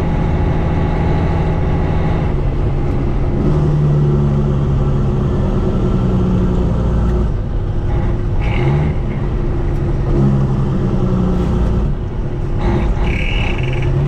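John Deere S680 combine harvester running: a loud, steady machinery drone whose tones shift in pitch a few times.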